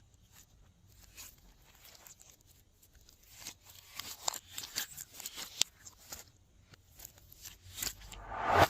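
Glossy slime being worked by hand: a run of small sticky clicks and pops that gets busier after about three seconds, rising to a louder squish near the end.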